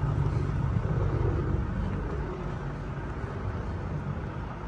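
Semi-truck diesel engine running steadily at low speed, a low even hum.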